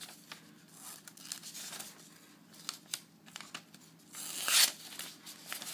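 Razor-sharp carbon-steel Bowie knife blade slicing through thin phone book paper: light paper rustling and small ticks, then one louder slicing hiss about four seconds in as the edge runs through the sheet.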